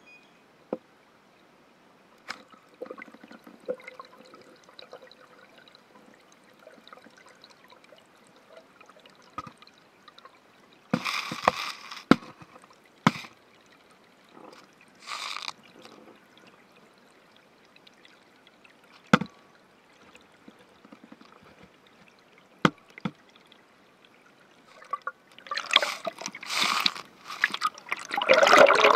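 Water heard through an underwater camera in a shallow stream: sharp clicks and knocks every few seconds, short rushes of bubbling about eleven and fifteen seconds in, then loud sloshing and gurgling from about twenty-six seconds in with the camera just under the water surface.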